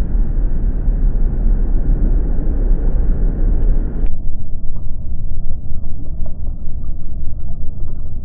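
Loud, muffled rumble of water and wind against an action camera sitting at the water's surface. It turns suddenly duller about halfway through, with a few faint small ticks after that.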